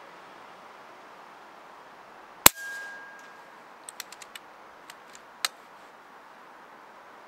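A single shot from a Jäger Korotysh 6.35 mm PCP air rifle with a moderator, about two and a half seconds in: one sharp crack followed by a faint metallic ring lasting about a second. About a second and a half later come several light clicks, then a sharper click.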